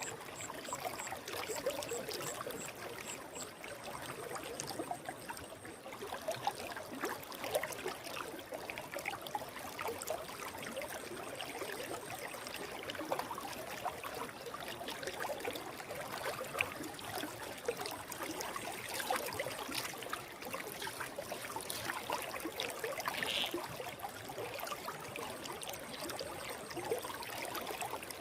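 Forest stream flowing steadily, a continuous trickling and babbling of running water with many small splashes.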